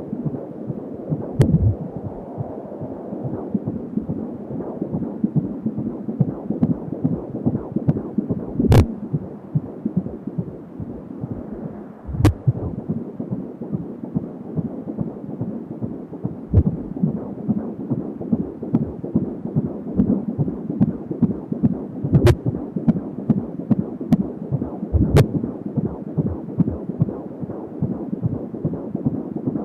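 Fetal heartbeat at 16 weeks of pregnancy heard through a Doppler monitor: a fast, steady pulsing beat with a few sharp knocks scattered through it.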